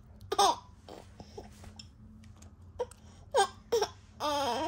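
Baby fussing with short whimpering cries: a sharp one about half a second in, two more brief ones past three seconds, and a longer wavering cry near the end. The baby has hiccups after a milk feed.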